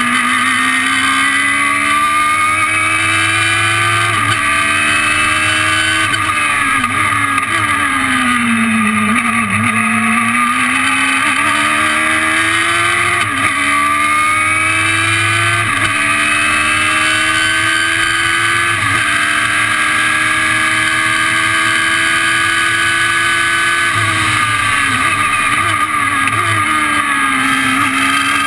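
The 2006 Radical SR3's Suzuki Hayabusa-based four-cylinder engine, heard from the open cockpit under hard acceleration. Its pitch climbs and drops sharply at each of several upshifts, then falls away under braking with quick throttle blips on the downshifts, over a constant rush of wind.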